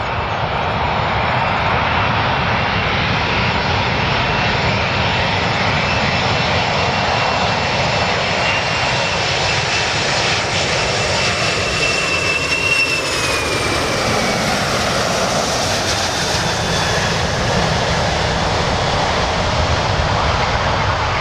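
Boeing 747-400 airliner's four turbofan engines running on final approach: a steady jet roar with a high whine that drops in pitch about thirteen seconds in as the aircraft passes by.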